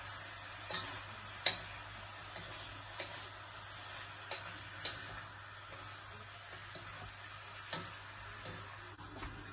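Pork sizzling quietly in a wok while a wooden spatula stirs it, scraping and knocking sharply against the pan a few times, the loudest knock about one and a half seconds in.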